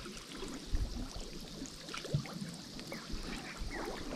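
Water sloshing and trickling, with scattered small splashes and gurgles.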